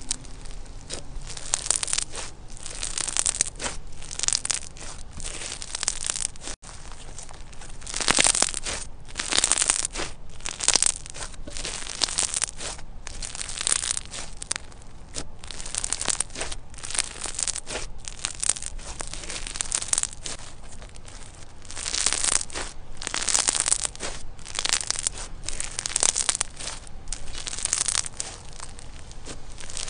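Hands squeezing and pressing a lump of textured, bumpy-coated yellow slime, giving a run of short crackly bursts about one a second, louder in some stretches.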